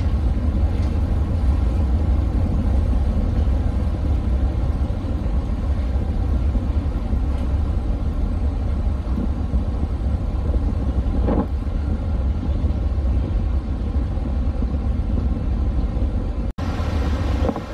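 Car ferry's engines and propellers running with a steady low rumble as the ship manoeuvres alongside its berth.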